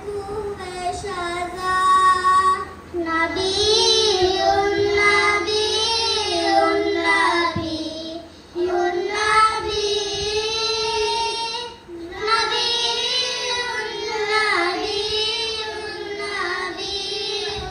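A group of children singing a madhaha, a Maldivian devotional praise song, into microphones, with no instruments. Short breaks between phrases come about eight and twelve seconds in.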